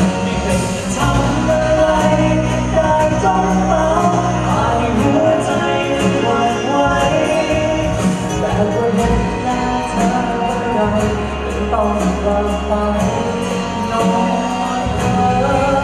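A male vocalist singing live into a microphone over loud backing music with a deep bass line.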